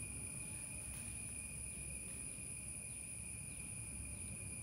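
Steady background room tone: a constant high-pitched whine over a low rumble.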